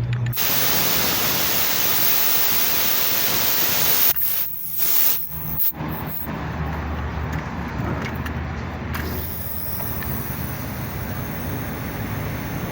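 Refrigerant gas hissing as it flows through the charging hose into an air-conditioner's refrigerant circuit for a partial charge after the vacuum. The hiss is strong at first, cuts out briefly twice about four to six seconds in, then carries on weaker over a low hum.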